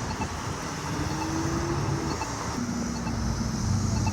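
Road traffic at an intersection: a vehicle's engine hum rises gently, then a steadier lower engine hum follows. Over it, an accessible pedestrian signal push button's locator tone ticks faintly about once a second.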